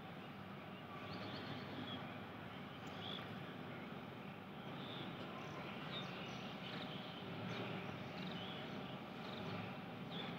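Steady low outdoor background hum with scattered short, high chirps, like small birds calling.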